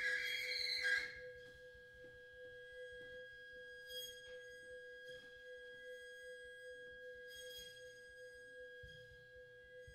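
A loud high held note stops about a second in, leaving soft, steady pure tones from the vibraphone's sustained bars ringing through the rest of the passage, with a faint click about four seconds in.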